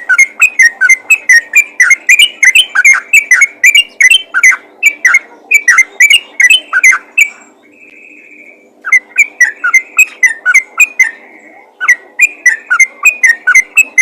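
Yellow-vented bulbul (trucukan) calling in a rapid, continuous run of short bubbly whistled notes, several a second, breaking off for about a second and a half just past the middle before starting again.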